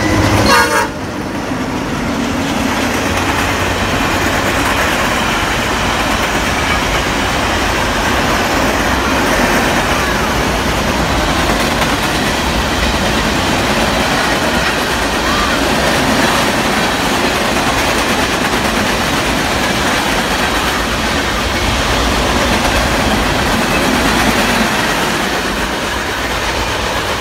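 Canadian National diesel freight train passing close by: the locomotive's horn ends about a second in, then the steady noise of the freight cars' wheels rolling on the rails.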